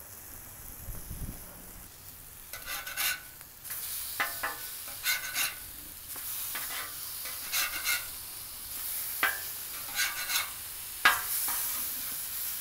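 Seasoned chicken breasts sizzling in oil on a propane steel flat-top griddle while a metal spatula scrapes and taps the steel, flipping them over. There is a series of short scrapes about a second apart, and the sizzle gets louder about four seconds in as the uncooked sides go down on the hot steel.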